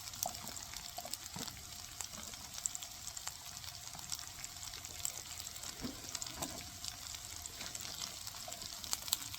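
Onions and mushrooms frying in melted butter in a pan, a steady sizzle with small crackles and pops.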